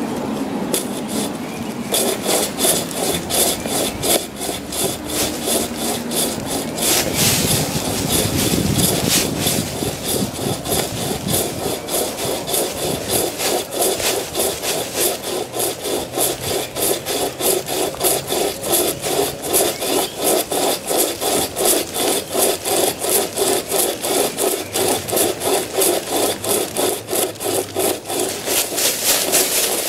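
A 36-inch pocket chainsaw, a hand-pulled cutting chain with fabric handles, being drawn back and forth through a tree limb. The chain rasps through the wood in quick, even strokes.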